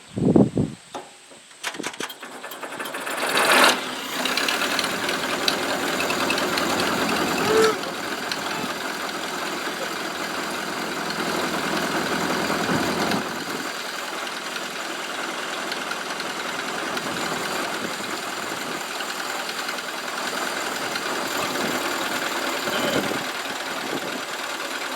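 Hand-cranked International Harvester Farmall Cub four-cylinder flathead engine, the power unit of a McCormick-Deering No. 50-AW hay baler: a few sharp knocks, then it catches with a loud burst about three and a half seconds in and keeps running steadily.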